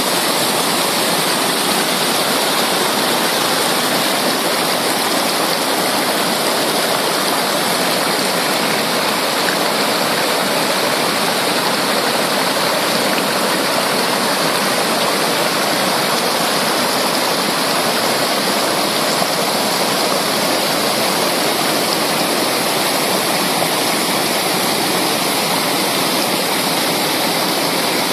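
Mountain creek flowing fast over rocks: a steady, loud rush of water.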